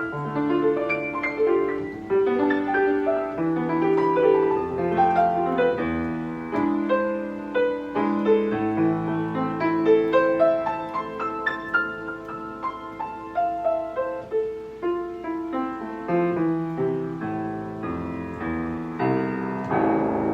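Steinway piano playing a classical piece: a continuous flowing line of notes over a moving bass, ending in a chord that rings on near the end.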